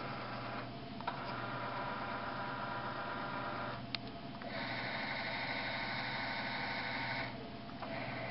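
Celestron CPC 1100 telescope mount's motor drives slewing at speed rate 7: an electric motor whine that stops and restarts three times, with a click at two of the restarts. It runs at a higher pitch in the middle stretch, from about four and a half to seven seconds in.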